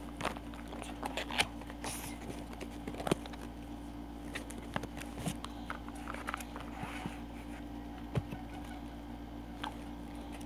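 Scattered light clicks and rustles of a small plastic toy necklace and its packaging being handled, over a faint steady hum.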